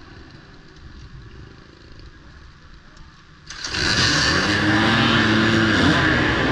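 Off-road race motorcycles. Engines run faintly at first, then about three and a half seconds in a loud roar of several bikes revving hard suddenly sets in and holds, their pitches rising and falling.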